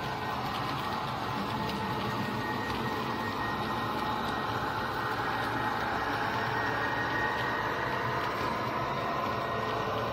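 OO gauge model trains running along the track: a steady mechanical whirr of small locomotive motors and wheels, with a thin high whine that swells briefly around six or seven seconds in.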